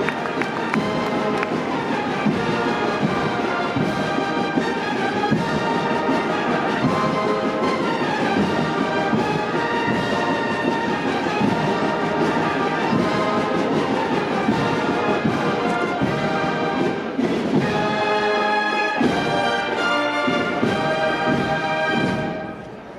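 Procession brass band playing a melody with several brass instruments sounding together; the music stops shortly before the end.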